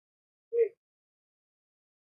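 One short, high-pitched vocal sound about half a second in, then silence.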